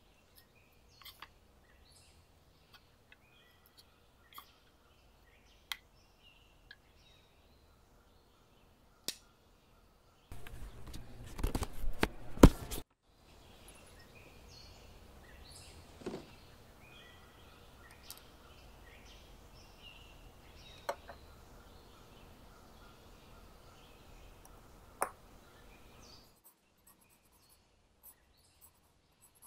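Quiet outdoor ambience with birds chirping and scattered small clicks and knocks as a wooden field easel is handled. About ten seconds in there is a loud burst of rustling and knocking for two or three seconds, which cuts off abruptly. A faint steady hiss follows, with more bird chirps.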